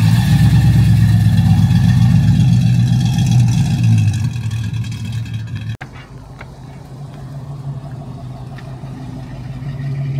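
A vehicle engine running with a deep hum, loud at first. About six seconds in it drops abruptly, then carries on as a steadier, quieter hum that slowly grows louder.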